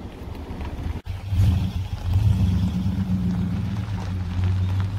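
Vehicle engine running with a steady low rumble, which starts after a sudden break about a second in.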